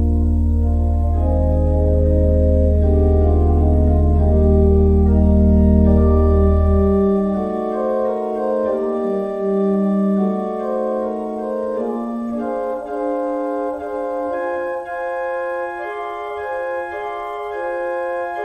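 Organ playing a slow church postlude in sustained chords. A deep bass note holds under the chords until about seven seconds in, then drops out, leaving the upper voices.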